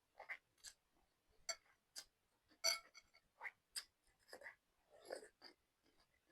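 Quiet eating sounds from a bowl of instant noodles: about a dozen short, irregular clicks and smacks.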